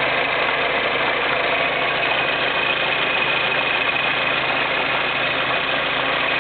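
Skoda Fabia (6Y2) running steadily with the abnormal transmission noise present, a thin high whine over the engine's sound.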